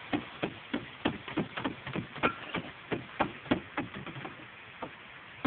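Hammer tapping a lead roof flashing, dressing the soft lead base of a copper vent boot down around curved clay tiles. Quick light blows, about three a second, thin out after about four seconds to two last taps near the end.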